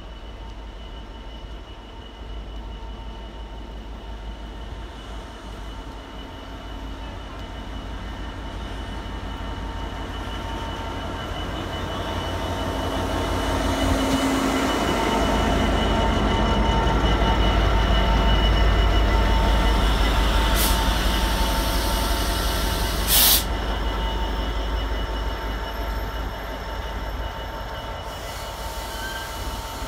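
Freightliner Class 66 diesel locomotive, with its two-stroke V12, passing close by hauling empty flat container wagons. Engine and wheel rumble build steadily to a peak as the loco goes by, then ease to the run of the wagons. A single sharp bang comes a little over two-thirds of the way through.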